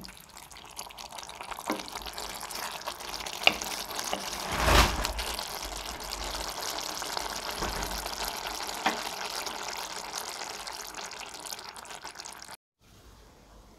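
Sprouted moth bean usal sizzling and bubbling in the pan just after the gas is turned off: a steady hiss with a few small pops and one louder pop about five seconds in. It cuts off suddenly near the end.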